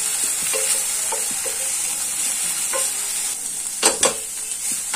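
Spatula stirring and scraping chopped vegetables and paneer around a stainless steel frying pan, over a steady sizzle of frying. The strokes come every half second or so, with two sharper scrapes just before four seconds in.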